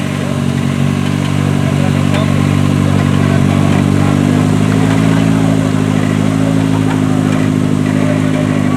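Engine of a modified off-road competition 4x4 running steadily under load, its level building over the first second and then holding.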